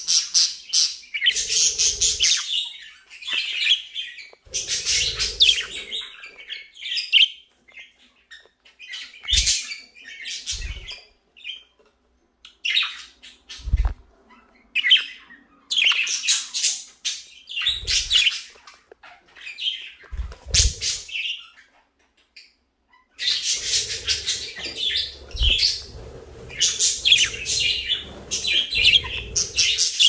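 Budgerigars chattering and chirping in bursts with short pauses between them, and a few dull knocks in between.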